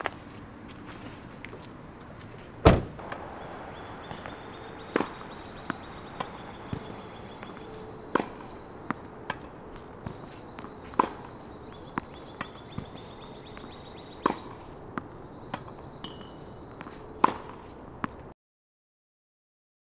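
Tennis balls struck by racquets and bouncing on a hard court during a feeding drill: a string of sharp pops about a second apart. Near the start comes one much louder slam, a car door shutting. The sound cuts off into silence near the end.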